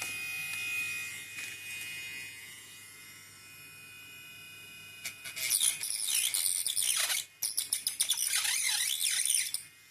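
Mini grinder (small electric rotary cutting tool) running at its lowest speed setting with a steady high whine that fades down. About halfway in, the disc bites into the workpiece: a loud, rough, fluctuating grinding noise, broken off once briefly.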